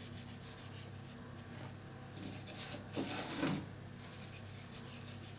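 Faint rustling and scraping of dried oregano being measured out with a spoon and sprinkled into a baking dish, with a slightly louder short sound about three seconds in.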